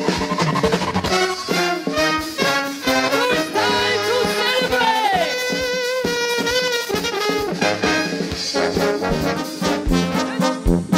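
Live oompah brass band playing, trumpets carrying the tune over brass and drums, with a falling slide in pitch about five seconds in and the drum beat sharper near the end.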